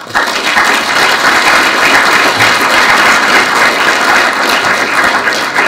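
Audience applause, starting suddenly, holding steady and beginning to die away near the end.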